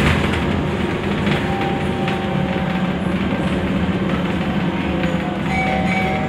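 Cabin noise inside a moving Scania articulated bus: a steady low engine drone mixed with road and tyre noise and rattling from the bodywork and fittings.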